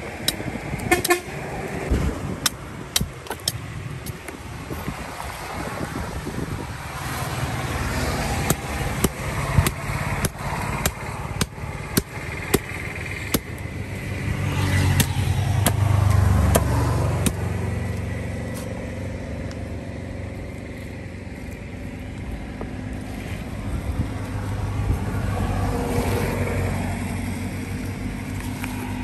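Road traffic: a motor vehicle swells past about halfway through, a vehicle horn sounds, and an engine keeps running steadily afterwards. Sharp knocks come at irregular moments through the first two-thirds.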